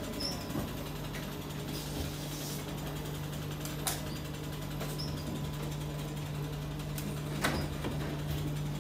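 Chocolate enrobing machine running with a steady low hum, with a few sharp knocks as metal trays of bonbons are handled, the clearest about halfway and near the end.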